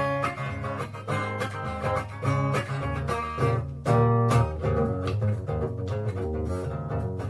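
Acoustic guitar being played, a steady run of plucked and strummed notes over a strong bass line.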